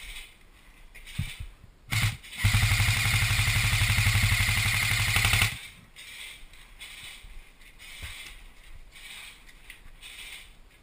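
Airsoft electric gun firing: a brief burst about two seconds in, then a sustained full-auto burst of about three seconds, a fast even rattle of shots that stops abruptly.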